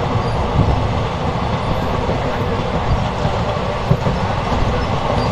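Running noise of the West Coast Express passenger train heard from an open coach doorway at speed: a loud, steady rumble and rattle of the wheels on the rails.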